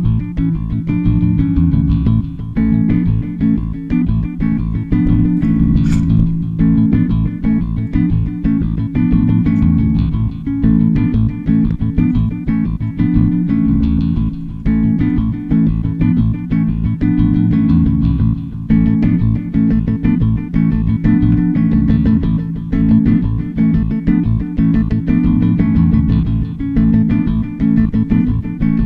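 Background music with guitar and bass guitar over a steady, repeating rhythm. A single sharp click cuts through about six seconds in.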